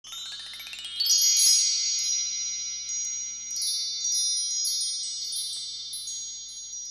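Sparkling chime sound effect for an intro title card: a quick rising sweep of bell-like tones over the first second, then scattered high chime notes struck here and there, ringing on and slowly fading.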